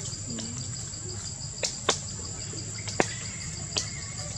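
Steady high-pitched insect chorus with a rapid pulsing trill under it, punctuated by a few sharp clicks.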